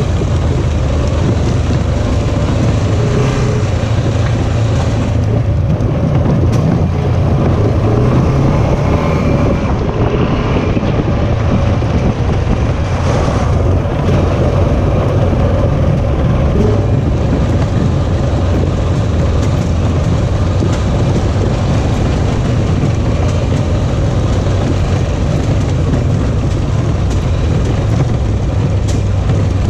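Off-road vehicle's engine running steadily under way on a trail, with wind buffeting the microphone.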